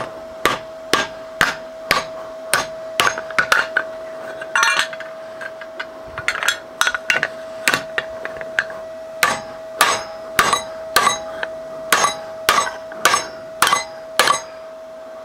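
Hammer blows on a MIG-welded 2 mm aluminium plate clamped in a steel bench vise, folding the butt weld over in a bend test. The blows come about two a second, with a short pause near the middle.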